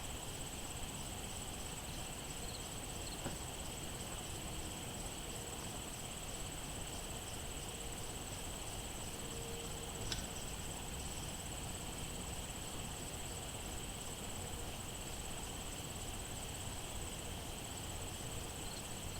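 Steady, unbroken chorus of late-summer insects with two high continuous pitches, one very high and one lower. A single faint click about ten seconds in.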